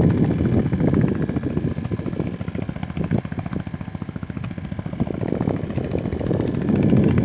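A small engine running with a rapid, even putter. It is louder near the start and end and eases off somewhat in the middle.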